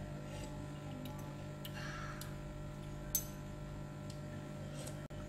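Quiet kitchen room tone: a steady low hum with a few light, scattered clicks, the sharpest about three seconds in.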